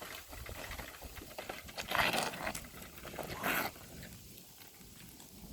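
Handcycle being ridden on its new rear tyres: a low rolling rumble with a quick, fine rattle of clicks, and two short rushes of noise about two and three and a half seconds in.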